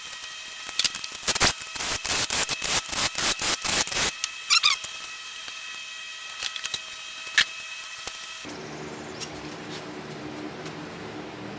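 Hand tools working on a car engine: a quick, irregular run of sharp metallic clicks and knocks for about three seconds, then a few scattered clicks. Near the end the sound changes abruptly to a steady low hum.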